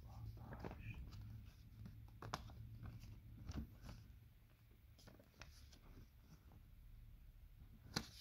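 Faint rustles and light clicks of paper banknotes being handled, folded and laid down on fabric, with a sharper click near the end, over a steady low hum.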